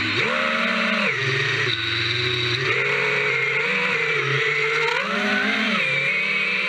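FPV multirotor drone's electric motors and propellers whining, the pitch rising and falling with the throttle several times as it swoops.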